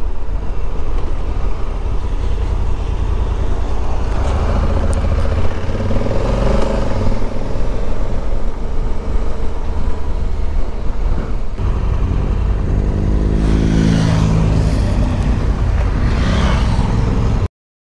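Motorcycle on the move with heavy wind noise rumbling on the camera microphone. Over the last few seconds engine notes glide in pitch as motorcycles slow and pass, and then the sound cuts off abruptly.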